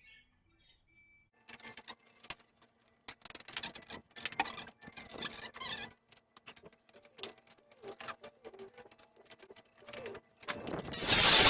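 Forge being fired up: metallic clattering and rattling over a faint steady hum, then a loud rushing whoosh that swells in near the end.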